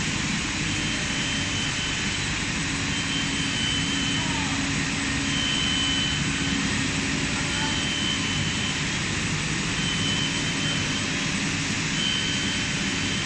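Multi-layer rubber sheet extrusion line running: a steady, loud machinery noise from the extruder drives and conveyor. A short high tone repeats every second or two.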